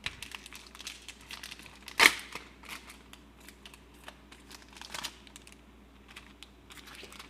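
Foil Pokémon trading-card booster pack being torn open and crinkled by hand: irregular crackling with one loud rip about two seconds in.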